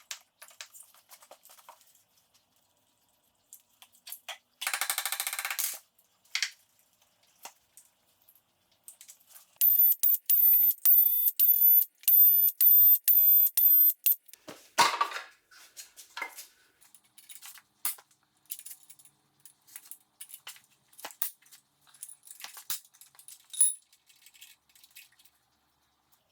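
Tools and metal engine parts being worked: scattered clicks and clanks, a short buzzing burst about five seconds in, and a stretch of rapid, evenly spaced clicking over a high whine from about ten to fourteen seconds in, ending in a clank.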